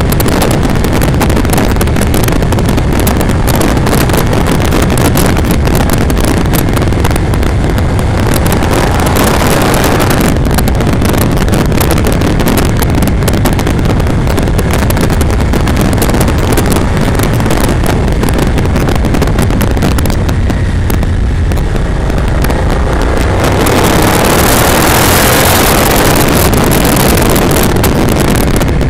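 Moto Morini motorcycle engine running steadily under way, mixed with wind rushing over the camera microphone. The wind hiss grows louder for the last few seconds.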